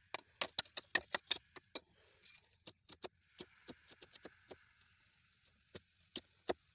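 A run of light, sharp clicks and taps from hands working the fittings of a PVC pipe coupling, quick at first (about four a second) and then sparser. A faint hiss comes and goes in the middle.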